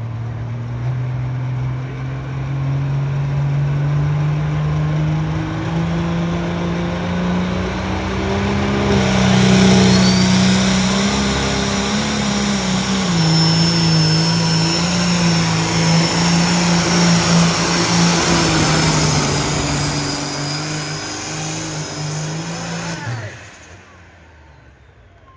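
Turbocharged diesel pulling tractor's engine running at high revs under load, its pitch climbing for about ten seconds, then dropping a step and holding, with a high whistle slowly falling in pitch over it. The engine sound cuts off shortly before the end.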